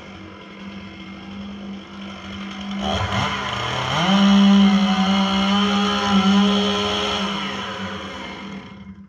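Stihl MS 661 two-stroke chainsaw idling, then revving up about three seconds in and running at full throttle through a cut in a squared timber for about four seconds. It winds back down near the end.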